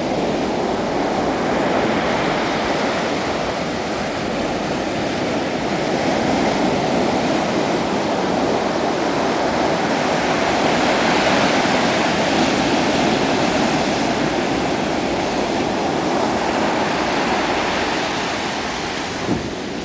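Ocean surf breaking close to shore and washing up the sand: a steady rush of waves that swells about ten seconds in and eases toward the end.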